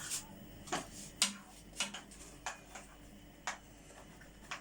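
Plates and forks being set out on a table: a string of sharp, irregularly spaced clinks and knocks of crockery and cutlery.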